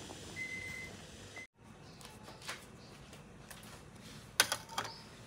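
A timer beeping with short high tones for the first second and a half, signalling the end of the steaming time. After that, soft clicks and rustles as paper-cupped steamed cakes are set down on a metal wire cooling rack, with the loudest knocks about four and a half seconds in.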